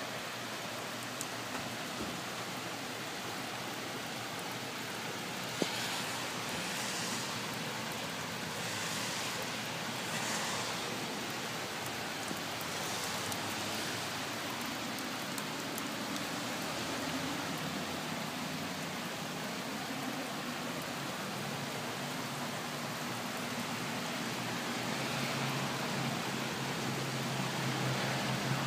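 Steady hiss of rain and floodwater running across a flooded parking lot. A low hum grows louder near the end.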